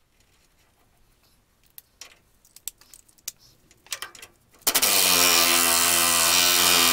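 A few light metal clinks of hand tools, then a handheld power tool runs steadily at one pitch for about three seconds, starting about two-thirds of the way in.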